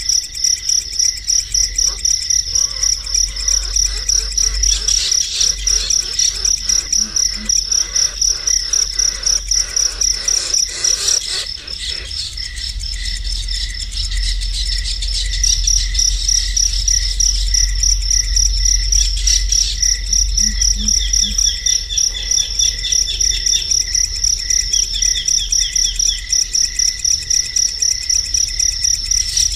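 An insect chirping in a steady run of rapid, evenly spaced high pulses, with a few short bird chirps about two-thirds of the way through.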